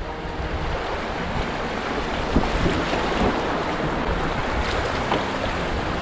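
Shallow river rapids rushing and splashing around a pack raft running through them, as a steady wash of whitewater noise.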